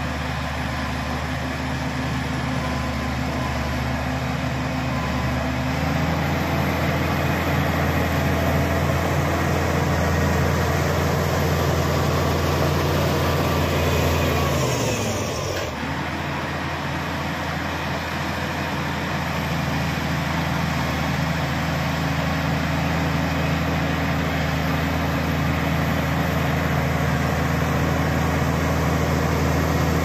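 Shantui SD16 crawler bulldozer's diesel engine running under load, its revs rising about six seconds in. Around halfway the revs drop with a falling pitch for a moment, then pick back up.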